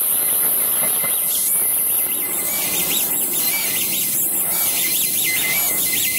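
Fiber laser cutting machine cutting sheet metal: a steady high hiss with a whine that rises and falls in pitch again and again as the cutting head traces curved shapes.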